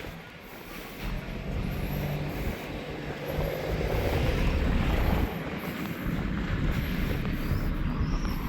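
A low engine rumble that swells about halfway through, with wind buffeting the microphone.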